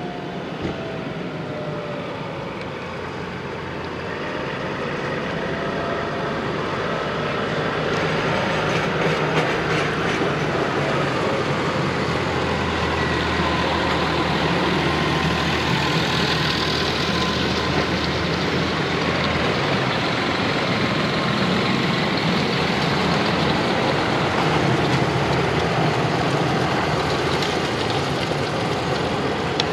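Farm tractors' diesel engines running as a convoy of tractors drives past, growing louder over the first several seconds as they approach, then holding steady.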